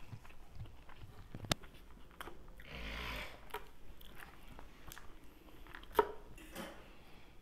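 A fork tossing salad in a clear plastic container: a short rustle of lettuce about three seconds in and a few sharp clicks of fork on plastic, the loudest near the end, along with some chewing.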